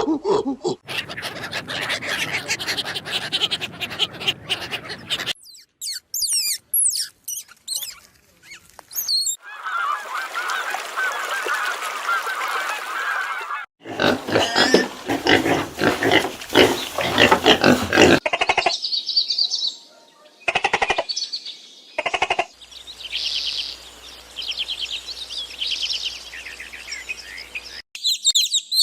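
A series of different animal calls, one short recording after another, cut abruptly from one to the next every few seconds.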